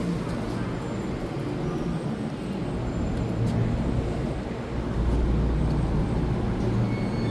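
Taiwan Railway EMU3000 electric multiple unit at the station platform, giving a steady low rumble with a few faint clicks.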